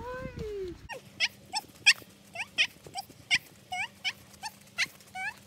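Border collie yipping excitedly: a drawn-out falling whine, then a quick run of short, high, rising yelps, about two to three a second.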